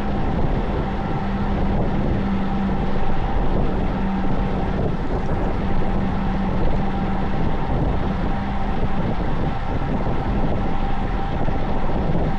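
Steady rush of wind and road noise from a road bike being ridden at speed, with a steady low hum running through it.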